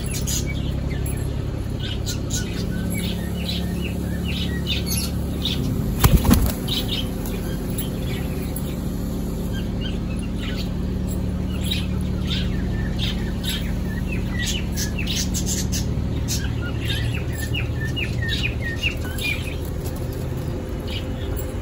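Flock of fantail pigeons feeding on millet, wings flapping now and then, with small birds chirping and a steady low background noise. A single loud thump comes about six seconds in.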